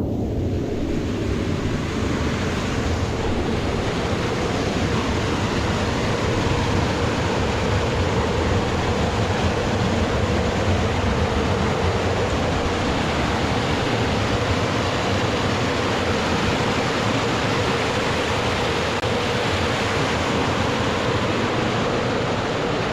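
Steady rush of a fast-flowing creek running high with snowmelt.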